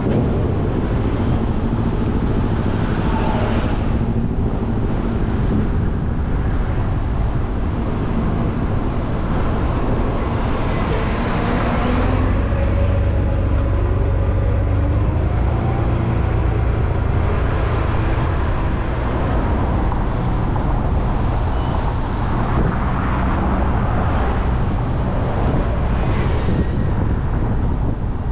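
Car driving on city streets: a steady rumble of road and engine noise with surrounding traffic, and an engine note rising and falling about halfway through.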